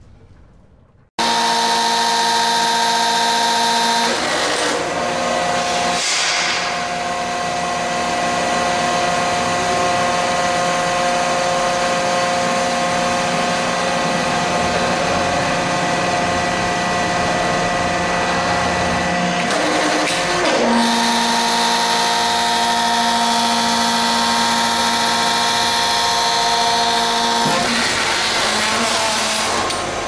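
Hydraulic pump of a 150-ton Nordberg horizontal hydraulic bulldozer running with a steady whine, starting suddenly about a second in. Its tone changes a few times as the push-button controls drive the ram in and out.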